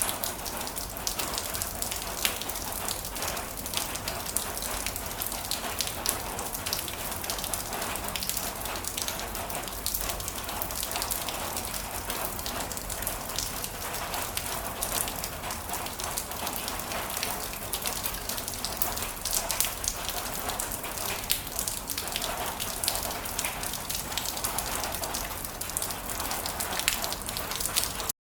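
Heavy rain falling steadily, a dense even hiss scattered with many sharp ticks of individual drops hitting a surface.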